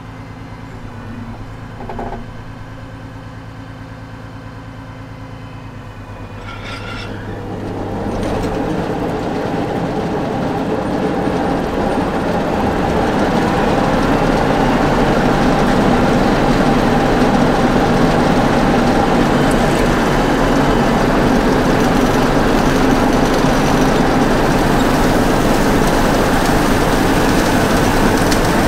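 Tractor engine idling steadily, then a forage chopper's cutterhead and blower are brought up to speed over several seconds and run on as a loud, steady machine noise.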